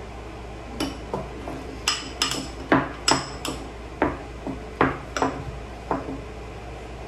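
A utensil clinking against a small glass bowl while stirring frosting: a dozen or so sharp, uneven clinks, each with a short ring.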